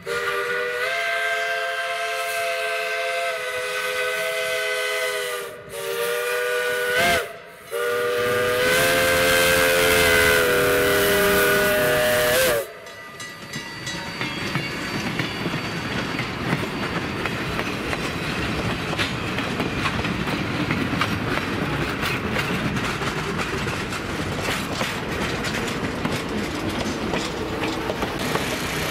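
Steam locomotive's multi-note chime whistle blowing four blasts, long, long, short, long, the grade-crossing signal. After the whistle stops, passenger coaches roll past with wheels clattering over the rail joints.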